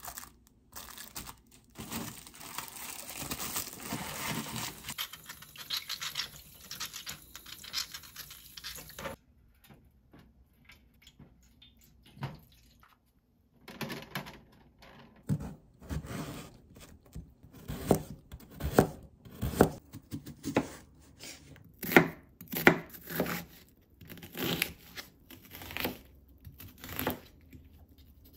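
Plastic cling film crinkling as it is pulled and pressed over a raw whole chicken in a metal tray, for about nine seconds. After a short lull, sharp clicks and knocks of kitchen prep: clam shells clinking against a stainless steel tray, then a knife striking a wooden cutting board in a fairly even rhythm.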